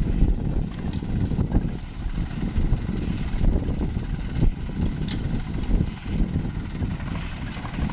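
Swaraj tractor diesel engines running hard under load as one tractor tows another that is stuck in mud with a fully loaded sand trolley. A dense, uneven low rumble.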